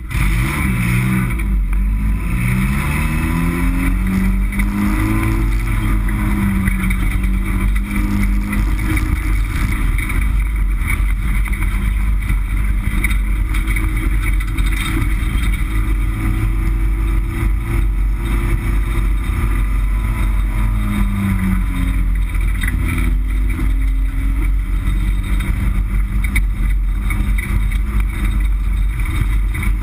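Race car engine heard from inside its stripped, roll-caged cockpit, suddenly loud as the car gets under way. The revs climb over the first few seconds, settle into a steady run, then drop and rise again about 21 seconds in.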